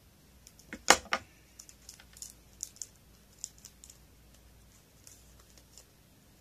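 Scissors snip and clack sharply about a second in. Light crinkling and ticking follow as fingers pick open a small plastic sticker packet.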